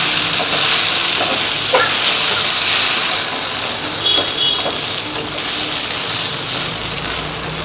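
Oil sizzling in a pan with onions, green chillies, peanuts and curry leaves as soaked poha is stirred in, giving a steady hiss with occasional faint scrapes.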